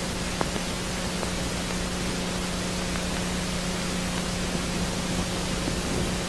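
Steady hiss across the whole range with a constant low hum underneath: background noise of the recording. One faint click comes about half a second in.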